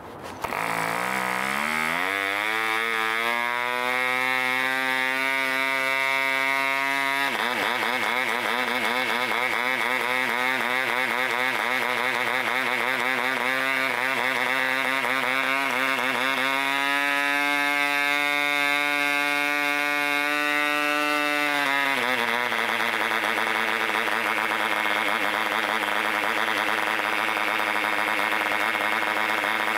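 A 3.5cc Mikro model diesel engine starts on a flick of the propeller after a port prime and climbs to high revs within a couple of seconds. In the middle its speed wavers unevenly for several seconds, then steadies. About 22 seconds in it drops to a lower, steady speed of around 6,400 rpm as the compression is adjusted.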